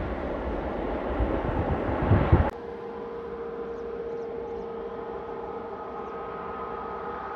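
Jet airliner engines at takeoff thrust: a deep, rumbling roar with low buffets, cut off abruptly about two and a half seconds in. After the cut, a quieter, steady jet engine whine from an airliner taxiing, one held tone with a higher one joining about halfway through.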